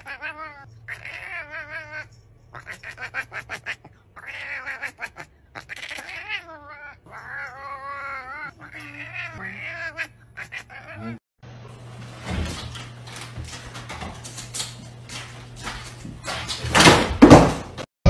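A ginger domestic cat yowling repeatedly: about six long, drawn-out meows with a wavering pitch, with short pauses between them. After a brief gap comes a stretch of scraping, clattering noise that is loudest near the end.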